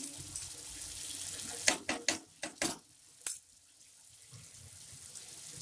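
Thick curry gravy sizzling and bubbling in a nonstick pan while a spoon stirs it. About two seconds in come about six sharp knocks of the spoon against the pan, and then only a quieter sizzle goes on.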